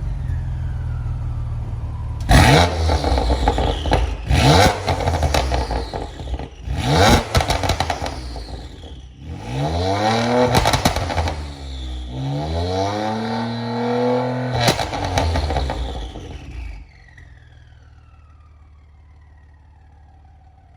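BMW M3/M4 S55 twin-turbo straight-six revved repeatedly through a full titanium exhaust with a 3.5-inch single midpipe, the pitch climbing and falling with each rev and sharp cracks and pops between blips. Near the end the revving stops and only a faint falling whine remains.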